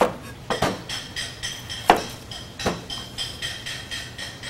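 Chef's knife knocking on a cutting board while cutting a yellow onion: a handful of sharp, irregular knocks in the first three seconds, then lighter ticks.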